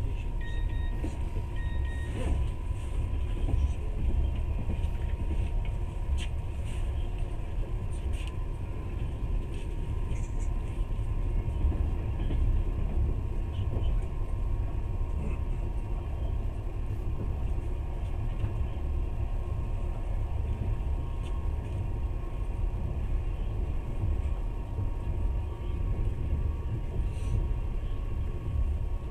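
Passenger train carriage running along the track, heard from inside: a steady low rumble with a faint steady whine above it.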